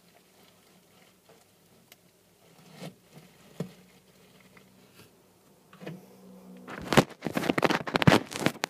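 A few light taps and knocks as a hand moves a bark hide in the snake's enclosure. About seven seconds in comes a loud, close run of crackling, scraping handling noise as the camera is picked up and moved.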